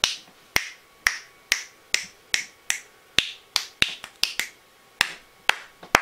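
Fingers snapping over and over, about fifteen sharp snaps at an uneven pace of two to three a second.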